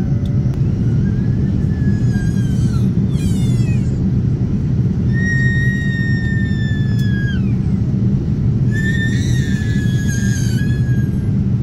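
Steady low roar of an airliner's engines and rushing air, heard inside the passenger cabin during descent. Over it come four high-pitched squeals, each held a second or two and drooping in pitch at its end.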